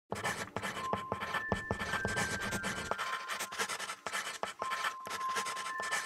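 Pencil scratching and tapping on paper, with pencils clicking as they are handled, in many short irregular strokes. Faint music with a few held high notes plays underneath.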